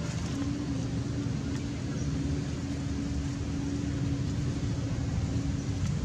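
A steady low rumble with a continuous, even hum, like a motor running.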